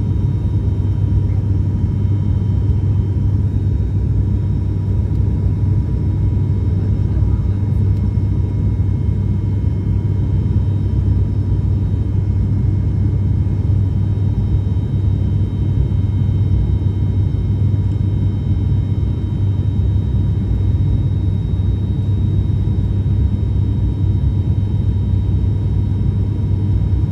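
Cabin noise of an ATR 72-600 turboprop in flight: its propellers and Pratt & Whitney PW127 engines make a loud, steady, deep drone with a faint even whine above it.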